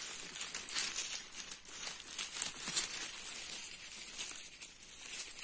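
Close, irregular rustling and crackling of dry material, dense and uneven throughout, with no steady rhythm.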